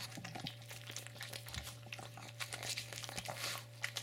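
Pug eagerly licking a Churu lickable treat from its squeeze packet: a quick, irregular run of smacking licks and crinkly clicks.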